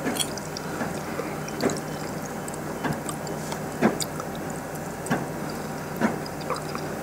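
Someone eating from a plate with a fork: wet chewing and mouth sounds, with a sharp click about once a second.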